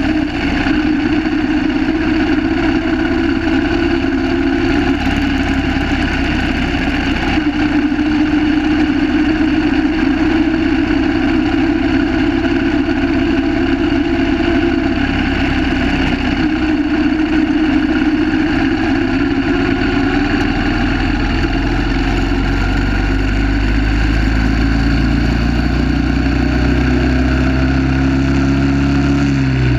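Onboard sound of a 1930 Terrot 350 HST's single-cylinder engine under way, its note shifting with throttle and gears, climbing steadily through the last several seconds as the bike accelerates, then dropping back near the end.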